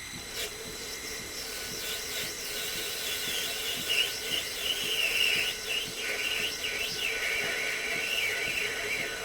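Lathe cutting with a ball-turning attachment: the tool scrapes across the turning workpiece with a wavering, high squealing rasp over a steady lower tone, starting about half a second in.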